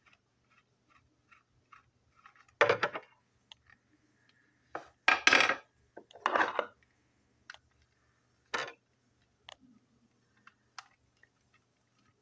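Screwdriver working on a small toy train engine being taken apart: a run of light, even clicks, then several louder clattering knocks and scrapes of small hard parts being handled, loudest around five to six and a half seconds in, with scattered small clicks after.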